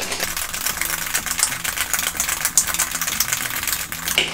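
Ice cubes rattling inside a metal cocktail shaker being shaken hard, a fast, continuous clatter: the drink is being shaken with ice to chill it.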